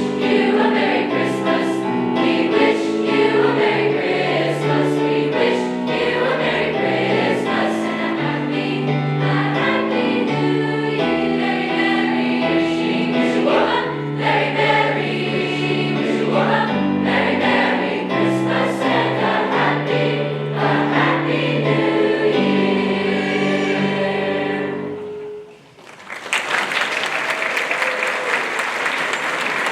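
High school choir singing a Christmas song in held chords, which ends on a long sustained note. About 26 seconds in, the audience breaks into applause.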